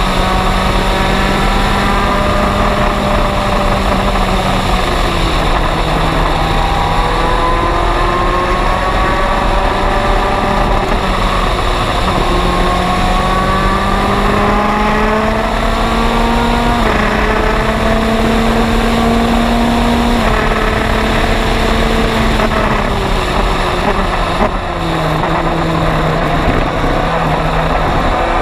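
MG Lola EX257 prototype's turbocharged four-cylinder race engine at full throttle, heard onboard with wind rush, its pitch climbing slowly through each gear and dropping at several upshifts. About three-quarters of the way through there is a brief lift off the throttle, after which the engine note settles lower.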